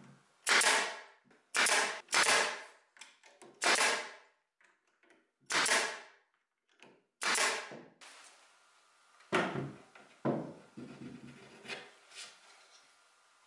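Pneumatic nailer firing six sharp shots, each with a short fading tail, as it nails a board down onto a wooden cabinet. About nine and ten seconds in come two duller, deeper knocks, followed by softer handling noise.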